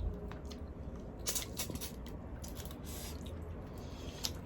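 Scattered wet clicks and crackles of boiled shrimp shells being pulled and peeled by hand.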